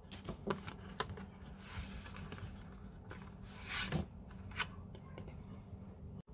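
Hands handling a CD's cardboard sleeve, printed cards and plastic wrapper: paper and plastic rustling with scattered light clicks and taps, and a longer rustle about two-thirds of the way through as the disc is taken out.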